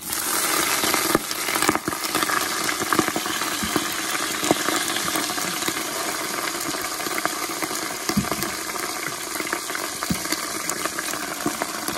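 Leafy greens sizzling in hot olive oil in an Instant Pot on its sauté setting. The sizzle starts suddenly as the first handful goes in, then stays loud and steady with scattered crackles.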